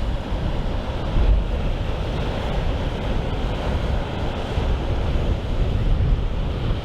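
Strong wind buffeting the microphone in gusts, over the wash of a choppy sea.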